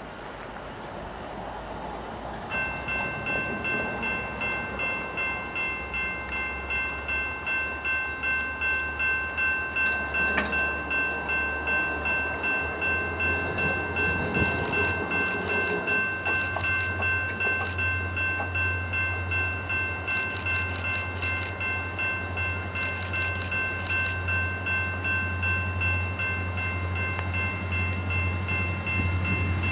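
A railway warning bell starts ringing a couple of seconds in and keeps ringing in steady, even strokes. Under it, the low rumble of an approaching diesel locomotive grows louder.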